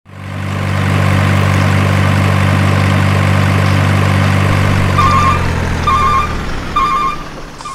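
Steady, heavy engine idling, like a big truck's, loud and fading in at the start and easing down near the end. In the last few seconds a short two-note electronic beep sounds about once a second.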